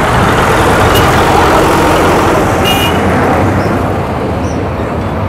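Steady road traffic noise. A short, high-pitched tone sounds about two and a half seconds in.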